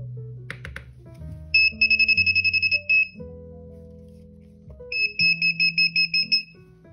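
Two bursts of rapid electronic beeping from a small buzzer, a high tone pulsing about ten times a second. The first burst lasts about a second and a half and starts near two seconds in; the second is a similar burst near the end. Background music runs underneath.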